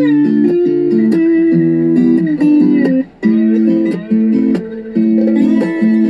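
Music: a plucked guitar melody, single notes and chords ringing one after another, with a short pause about three seconds in.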